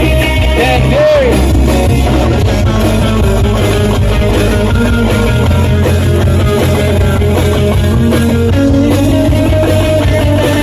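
Live band playing loud pop-rock through a stage sound system, with electric guitar and heavy bass. A singer's voice slides in pitch briefly about a second in.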